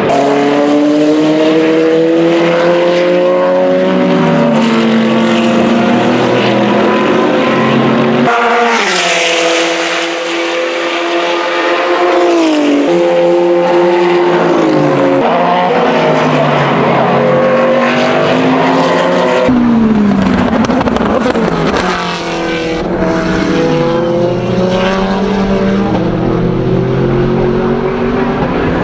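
Corvette C8.R race car's V8 at racing speed, its pitch dropping in steps through downshifts and climbing again under acceleration, over several passes joined by cuts.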